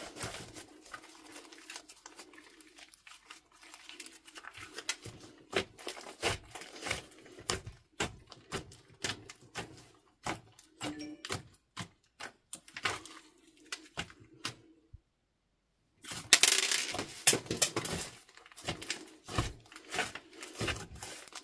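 Thick slime being pressed and kneaded by hand: irregular sticky clicks and small pops as it squashes and pulls away from the surface. About two-thirds of the way in the sound cuts out completely for about a second, then comes back as denser, louder crackling.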